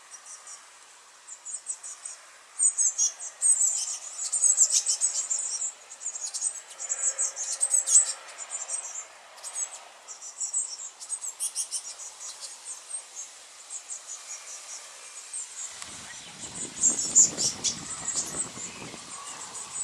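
Blue tit nestlings begging: rapid, very high-pitched chirping in bursts, loudest in the first half and again shortly before the end.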